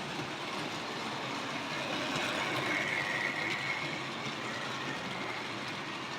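Model railway locomotives running round the layout: a steady running noise of their motors and wheels on the track, with a faint thin whine standing out for a second or two in the middle.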